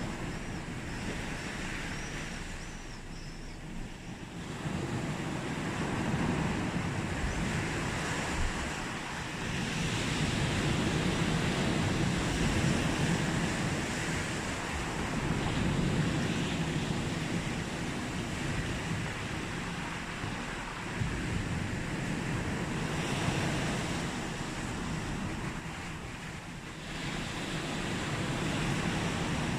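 Sea waves breaking and washing onto a beach, a continuous surf that swells and ebbs every few seconds.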